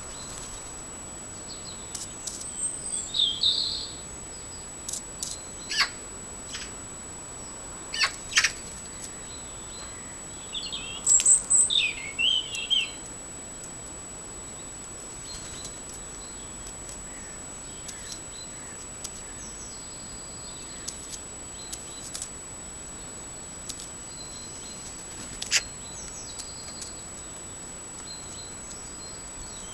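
Birds chirping in short bursts twice, with a few sharp taps of a raven's beak pecking at apple on a concrete slab, over a steady hiss and a faint, constant high tone.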